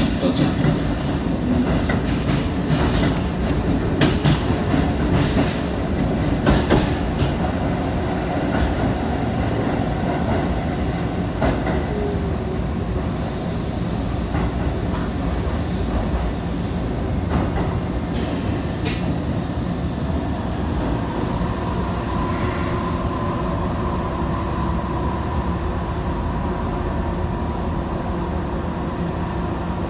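Shibayama Railway 3500-series electric train heard from inside, running through a tunnel and into an underground station: a steady rumble of wheels on rail, with sharp rail clicks in the first several seconds. A faint steady whine comes in about two-thirds of the way through.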